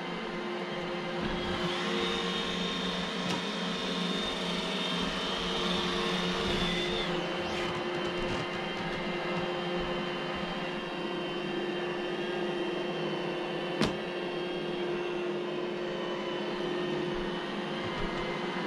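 iRobot Roomba j7 robot vacuum running: a steady whir of its motor and brushes. A high whine joins for about five seconds near the start, and there is one sharp click about fourteen seconds in.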